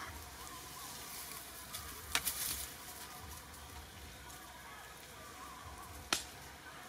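Outdoor ambience in dry woodland: a steady hiss with faint chirps. Sharp crackling clicks come about two seconds in, and a louder single click comes near the end.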